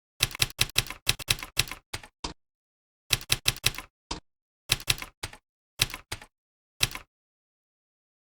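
Computer keyboard typing in quick runs of keystrokes, a long run in the first two seconds and then shorter bursts and single clicks separated by brief pauses.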